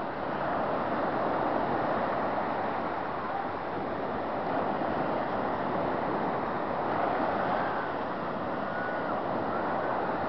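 Surf breaking and washing up a sandy beach, a steady rush of water that swells and eases with the waves.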